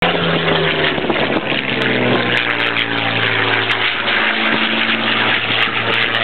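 Supermarine Spitfire's piston engine running under power as the fighter flies aerobatics overhead, its note dropping in pitch about a second in and then holding steady.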